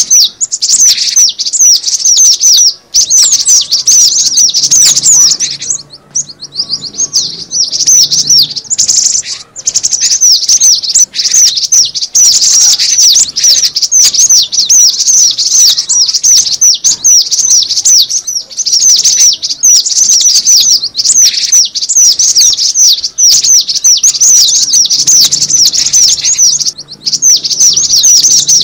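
Cinereous tit (gelatik batu) calling: a rapid, near-continuous stream of high, short down-slurred chirps, with brief pauses about six and nine seconds in.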